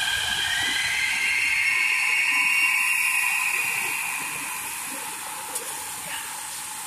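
São Paulo Metro Line 5-Lilac train moving along the platform: its electric drive whines, the whine rising in pitch over a steady hiss, and the sound fades toward the end.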